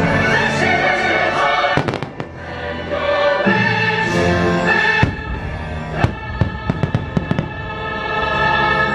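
Fireworks bursting over a loud orchestral and choral show soundtrack: sharp bangs about two seconds in and again around five and six seconds, then a quick run of crackling pops just after six seconds.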